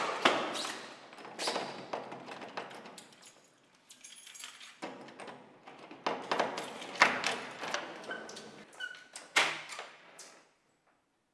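A wooden interior door being handled and opened: a rapid run of clicks and knocks from the handle and door, with a short squeak near the end. The sound cuts off abruptly about ten and a half seconds in.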